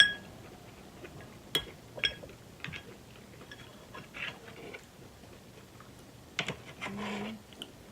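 Close-miked eating sounds from a seafood boil: scattered sharp clicks and crackles of food and utensils being handled, with quiet chewing between them.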